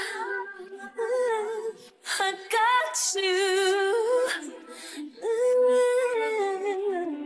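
A woman's singing voice in a pop ballad, drawing out long notes with vibrato over very sparse backing. Near the end one long held note falls away in pitch.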